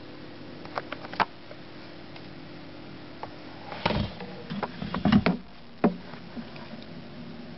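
A baby rabbit moving about in wood-shaving bedding: scattered clicks and rustles, a few about a second in and a denser, louder cluster about four to five and a half seconds in, over a faint steady hum.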